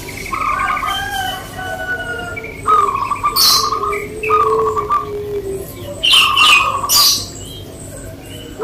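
Zebra doves (perkutut) cooing in repeated rolling, stuttering phrases that overlap one another. Sharp, high chirps cut in twice, about three and a half seconds in and again around six to seven seconds in.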